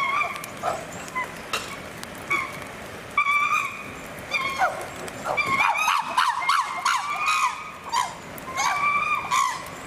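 Chimpanzees calling in excitement: a string of shrill barks and screams that rise and fall sharply in pitch, coming thick and fast in the middle.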